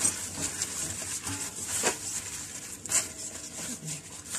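Hands handling diced potato cubes in a dark bowl, with light rustling and a few sharp clicks of pieces and fingers against the bowl, the strongest right at the start and at about two and three seconds in.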